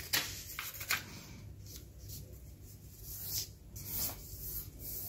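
A book page being folded and its crease rubbed flat by hand, heard as a series of short, crisp paper rustles and swishes.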